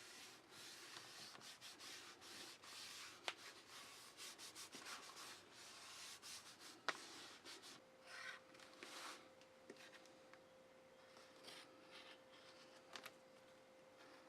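Faint, quick rubbing strokes on leather, dense at first and sparser in the second half, with two sharp clicks. A faint steady tone comes in about eight seconds in.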